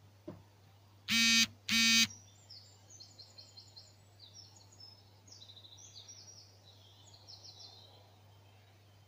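Dawn chorus: a small bird sings quick, high chirping phrases of rapid repeated notes. Before it, two loud, short, buzzy blasts about half a second apart are the loudest sound.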